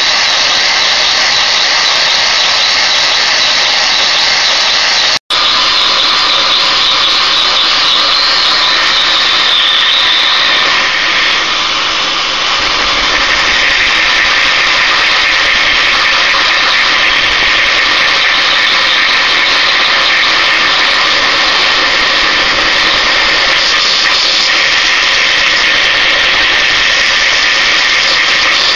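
A Lego Technic vibrating-lever engine with opposed, double-acting pistons, worked by vacuum suction, running steadily with a loud, constant rushing hiss of drawn air. The piston is fixed, so the engine runs without knocking. The sound cuts out for a split second about five seconds in.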